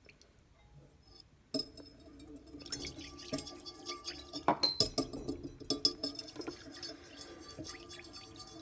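A utensil clinking rapidly and irregularly against a glass bowl as food is mixed, starting about a second and a half in.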